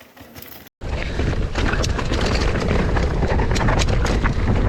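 Mountain bike riding down a dirt trail: heavy wind buffeting on the microphone with tyre noise and frequent sharp rattles and knocks, starting abruptly after a brief silence just under a second in.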